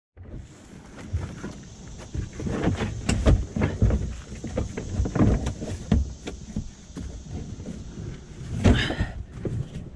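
Irregular knocks, thuds and clatter of objects being handled and moved about, with a longer scraping rattle near the end.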